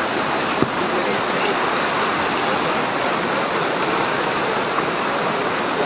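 Steady rushing of whitewater through the rapids of an artificial canoe slalom course, with one brief click about half a second in.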